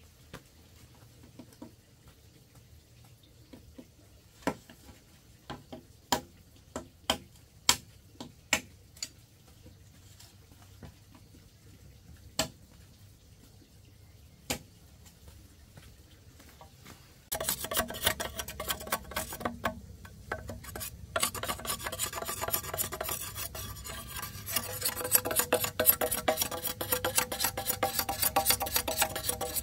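Machete striking a green bamboo pole with separate sharp knocks a second or so apart, then, from about halfway through, a fast continuous run of rasping strokes as the blade scrapes along the bamboo, getting louder near the end.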